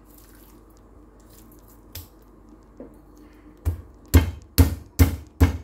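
Meat mallet pounding raw chicken breast on a wooden cutting board to flatten and tenderise it. The heavy, regular thumps begin a little past halfway, about five strikes at a little over two a second.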